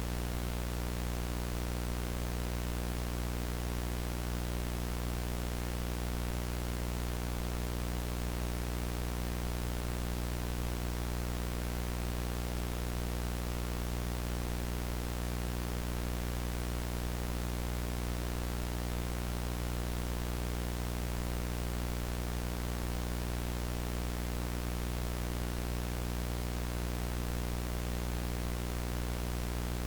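A steady, unchanging electrical buzz, a low hum with many overtones, under an even static hiss.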